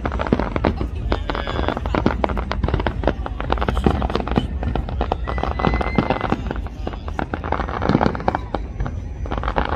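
Aerial fireworks bursting in quick succession: a dense, continuous crackle of many small pops, with louder bangs about four and eight seconds in.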